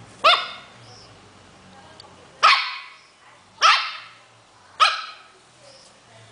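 Small poodle-type dog barking four sharp barks at a cat, each bark dropping in pitch, spaced about one to two seconds apart; play barking.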